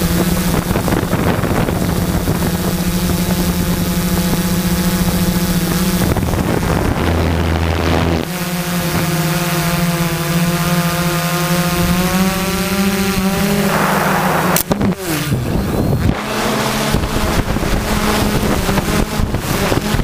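A quadcopter's Multistar 2212 920kv brushless motors and 12-inch carbon-fibre propellers whirring steadily in flight, heard from the onboard camera, with the pitch shifting a few times. About fourteen and a half seconds in comes a sharp crack. The motor pitch then falls and the sound turns choppy and gusty as the craft tumbles after a mid-air collision.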